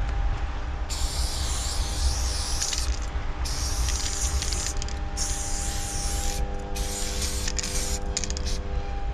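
Spray paint can with an NY cap hissing in five bursts of about half a second to two seconds each, as a graffiti outline is sprayed. Under it runs a steady low rumble and hum.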